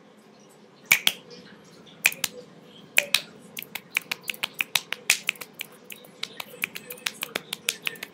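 Fingers snapping: sharp single snaps about a second in and again at two and three seconds, then a quick run of several snaps a second to the end.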